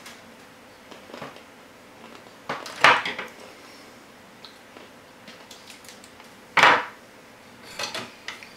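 Clatter and knocks of hard objects being handled and set down while wiring: a loud cluster of clacks about three seconds in and another near seven seconds, with lighter clicks between.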